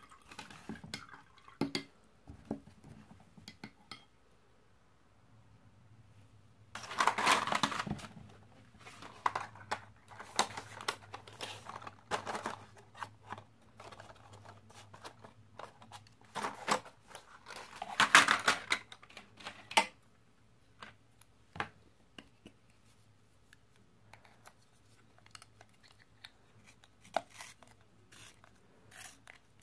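Art supplies being handled on a drawing desk: irregular small clicks, taps and scrapes, with two louder stretches of scraping, ending with a colored pencil being turned in a small handheld sharpener.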